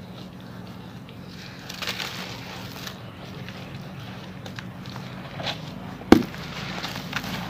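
Wet sand-cement shapes being crushed and broken apart by hand over a bucket of water: gritty crumbling and crackling, with one sharp crack about six seconds in.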